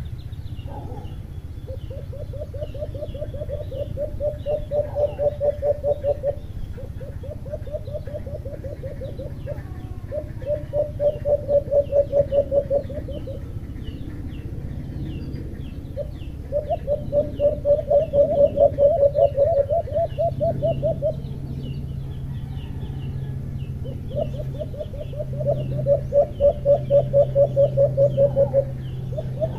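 Caged decoy alimokon doves cooing in long trains of rapid pulsed coos, several of them, each lasting a few seconds. Faint high chirping of small birds goes on behind, and a low steady hum comes in about two-thirds of the way through.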